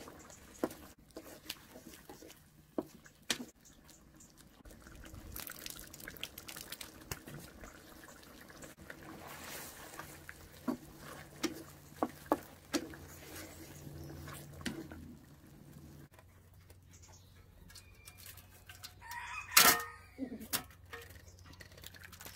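Wooden spatula clicking and scraping against a steel wok of simmering fish, with a rooster crowing once about three-quarters of the way through, the loudest sound.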